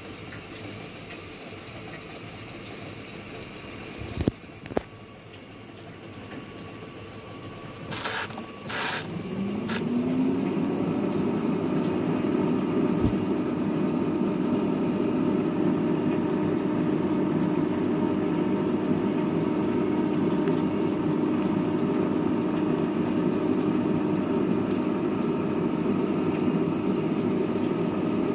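Midea air fryer being switched on: a few clicks from its control knobs, then its fan motor spins up with a rising whine about nine seconds in and settles into a steady running hum with an airy rush.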